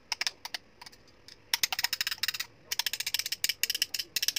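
Metal spoon clicking and tapping against a mixer beater, scraping whipped cream off it into a bowl. The clicks come in quick runs, with a short pause about a second in.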